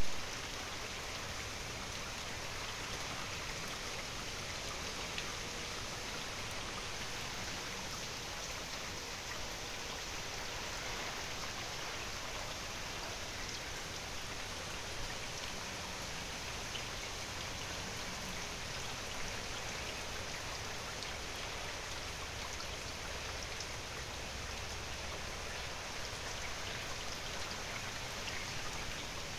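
Steady rain falling on a lawn and patio, with single drops ticking close by now and then.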